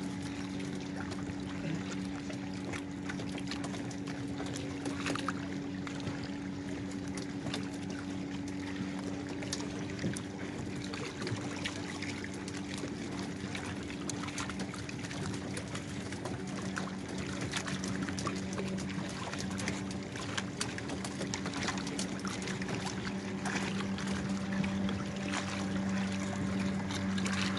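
Steady low hum of boat engines running among the fishing boats, its pitch shifting lower about two-thirds of the way through, with water lapping and splashing against the hulls and scattered small knocks.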